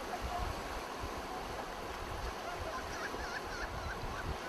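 Steady rush of flowing river water, with a low rumble of wind on the microphone. About three seconds in, a bird gives a quick series of warbling chirps.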